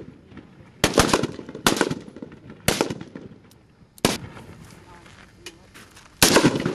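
Five single gunshots at irregular intervals, each a sharp crack with a short echoing tail.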